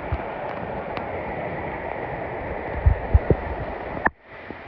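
Steady rain, with wind on the microphone, and a few dull thumps about three seconds in. The sound cuts out briefly about four seconds in and comes back quieter.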